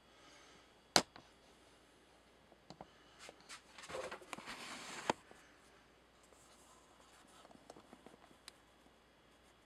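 Handling noise as the camera is moved: a sharp click about a second in, a few light taps, then a short rustle that ends in another click about five seconds in.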